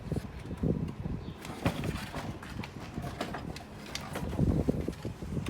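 Irregular light knocks and clicks, louder in clusters about a second and a half in and again past four seconds, as of parts being handled.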